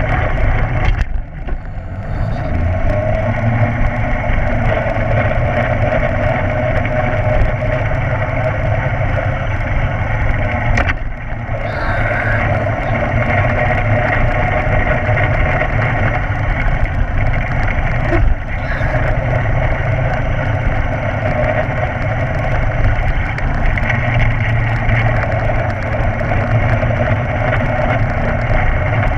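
Small go-kart running steadily as it drives around the track, heard from on board the kart, with three short dips in the sound.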